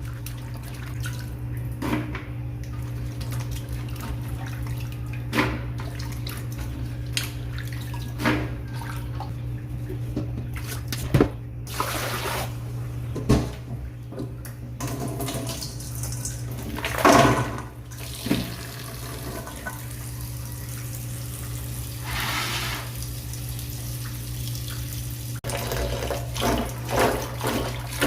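Water running from a tap, with occasional sharp knocks and a louder clatter about seventeen seconds in.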